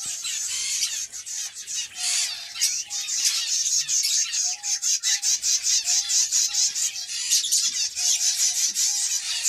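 Canaries and other small aviary finches chirping and trilling in rapid, high-pitched strings, with a short lower whistled note repeated every half second or so.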